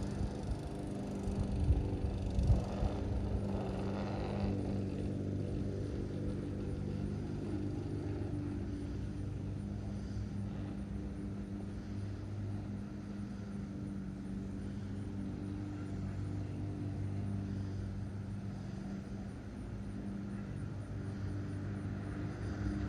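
A vehicle goes by in the first few seconds, then a steady low mechanical hum with a few even tones carries on.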